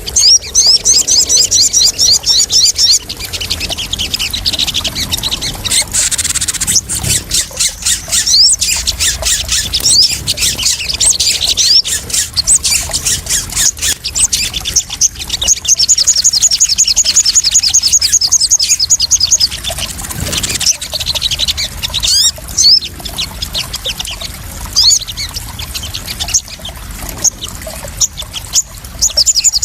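Sogon (crimson sunbird) calling in rapid trills of high, sharp chirps, several long runs with short pauses between, over splashing, trickling water.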